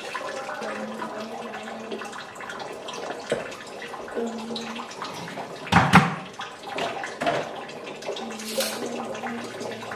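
Pot of water bubbling on the stove with lamtoro seeds cooking in it. There is a single sharp knock about six seconds in.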